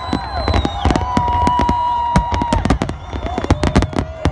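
Fireworks display in a dense barrage: rapid, overlapping bangs and crackling from aerial shells bursting, mixed with steady and gliding whistles.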